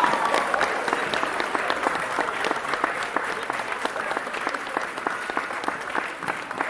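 Crowd applauding, many hands clapping at once, slowly dying down.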